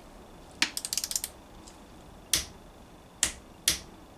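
Click-type torque wrench tightening a gearbox plug: a quick run of ratchet clicks about half a second in, then three single sharp clicks spaced apart as the wrench clicks over at its 34 N·m setting.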